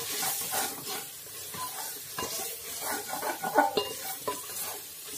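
Spatula stirring and scraping fried onions and freshly ground spices around the bottom of a pressure cooker, over a light sizzle of frying oil, with sharp taps of the spatula against the pot now and then.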